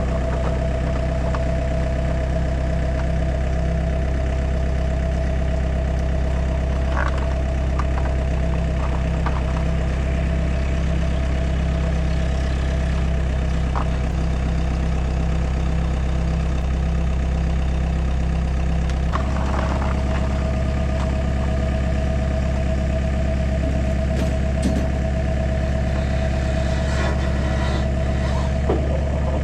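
Komatsu skid steer's engine running steadily, its note changing slightly about two-thirds of the way through, with a few faint clicks over it.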